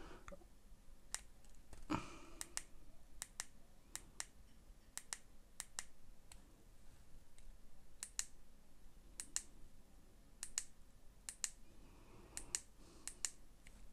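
Small buttons on an Aspire Rhea X vape mod clicking as they are pressed over and over, in an irregular run of sharp clicks, often in pairs, about one to two a second. The presses are resetting the mod's puff counter to zero.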